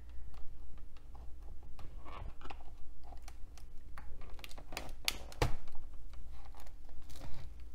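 Plastic clicks, scrapes and creaks as a metal pick pries a stuck battery out of a Gateway Solo 5300 laptop's bay. There are many small ticks, then a louder snap about five seconds in as the battery lifts free. The battery is stuck and the owner suspects it is swollen.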